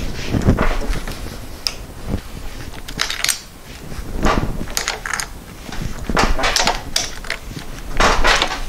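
Hand-lever metal shrinker clamped in a vise, its toothed dies biting and squeezing the lip of a sheet-metal patch panel: several irregular metallic clanks and crunches, one per squeeze of the handle, as the lip is shrunk into a curve.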